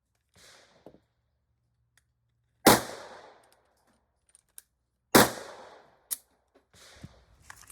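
Ruger Max-9 9mm pistol firing two shots about two and a half seconds apart, each with an echoing tail, after a much fainter shot near the start.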